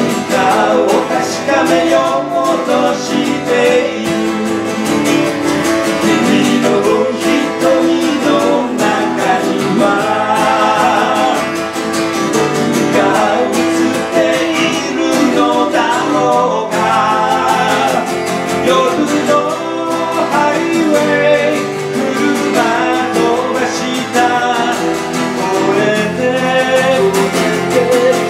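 A live acoustic duo: two acoustic guitars strummed together while a man sings lead into a microphone.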